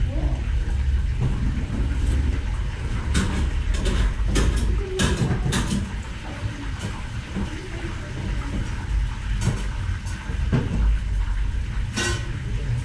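Commercial kitchen noise: a steady low rumble of running kitchen equipment, with scattered sharp knocks and clatter of utensils and dishes.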